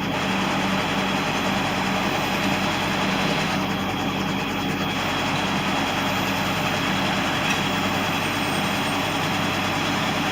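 Cat excavator's diesel engine running, its speed hunting up and down rapidly: an engine RPM oscillation fault.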